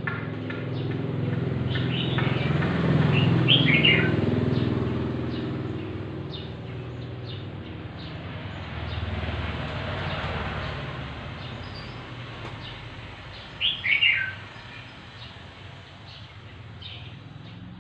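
Small birds chirping, with a quick falling run of chirps about three seconds in and again near the end. Under them a low, steady hum swells over the first few seconds and then fades.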